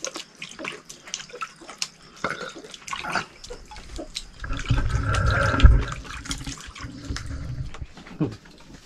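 Water splashing and dripping in a plastic basin as a hand works in it, with many small clicks and knocks. A louder muffled rumble runs for about a second and a half around the middle.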